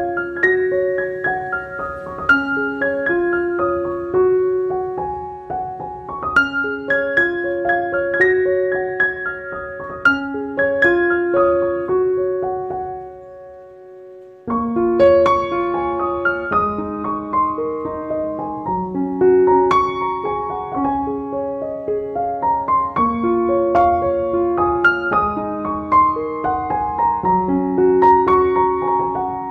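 Background piano music: slow melodic phrases of single struck notes over held chords. It fades out about twelve seconds in and starts again suddenly a couple of seconds later.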